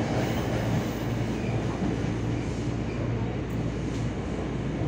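Passenger train running, heard from inside the coach: a steady low running noise of wheels on rail.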